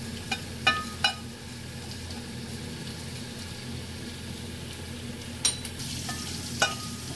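A steel spoon stirring cumin and coriander seeds as they dry-roast in a pan, clinking on the pan three times in the first second and twice more near the end. Underneath is a steady frying hiss.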